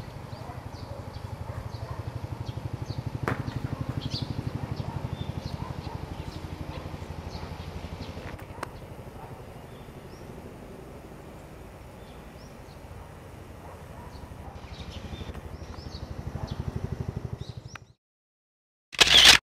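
Outdoor ambience: small birds chirping now and then over a steady low rumble, with a couple of sharp clicks. The sound cuts off abruptly near the end, followed by one brief loud rush of noise.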